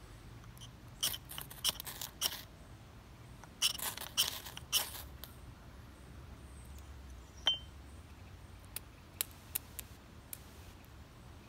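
A piece of glass scraped down a keychain ferro rod to throw sparks, in short hissing strokes: a quick run of about five strokes a second in, three more around four seconds, then a few lighter scrapes and clicks.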